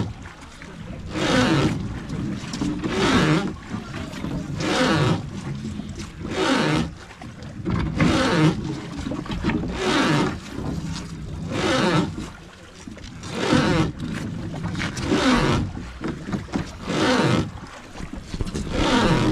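Wooden river boat being rowed by hand, one stroke about every second and three-quarters, each stroke a rush of water and wood working under the boatman's effort.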